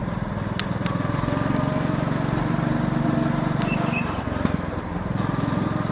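Go-kart engine running steadily under way, easing off briefly about four seconds in, with a couple of sharp clicks about half a second in.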